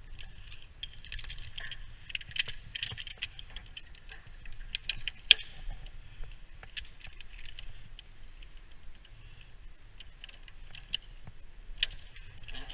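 Metal carabiners and rope-access devices clinking and clicking as they are handled on the rope: irregular sharp metallic clicks, the loudest about five seconds in and again near the end.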